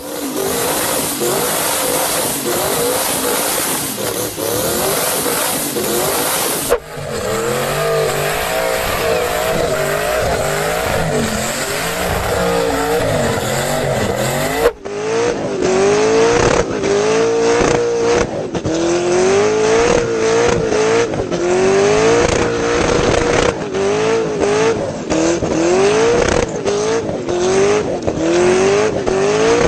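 Twin-turbocharged V8 car doing burnouts: the engine is revved hard again and again, pitch climbing and dropping about once a second, with tyres squealing.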